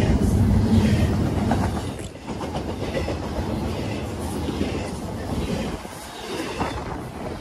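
Double-stack intermodal freight cars of a CSX train rolling past close by: a steady rumble of steel wheels on the rails with recurring clicks. It gets quieter about two seconds in.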